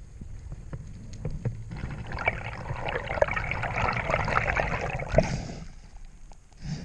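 Water splashing and bubbling close to the microphone, swelling for about four seconds in the middle over a low steady rumble, with a sharp knock near the end.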